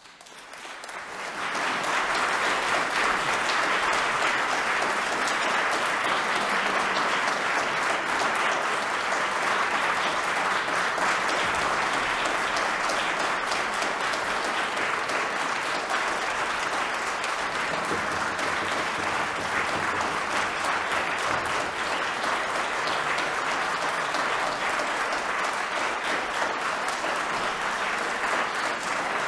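Audience applauding. The clapping swells over the first two seconds and then holds steady.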